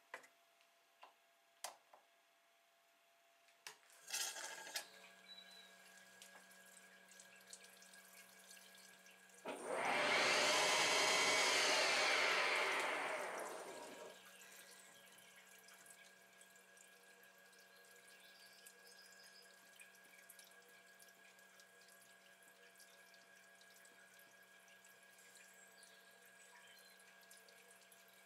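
A few sharp clicks, then the CNC lathe's spindle and flood coolant start about four seconds in and settle to a steady hum with coolant trickling. In the middle a loud rushing noise rises and fades over about four seconds as the tool takes a light cut on the aluminium rod under coolant.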